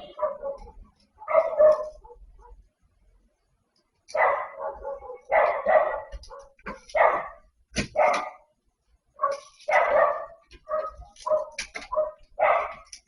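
A dog barking in a long series of short barks, with a pause of about a second and a half early on before the barking picks up again and keeps going.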